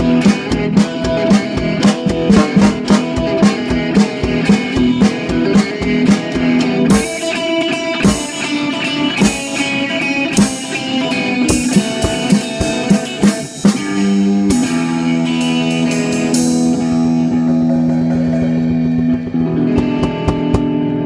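Rockabilly song ending: guitar over a steady percussive beat, then about two-thirds of the way through a final chord is struck and left to ring and fade, with a few more guitar notes near the end.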